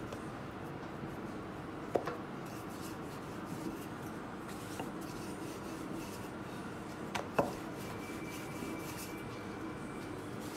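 Wooden rolling pin rolling out a ball of dough on a floured granite countertop, a soft rubbing sound. It is broken by a few sharp knocks about two seconds in and again about seven seconds in.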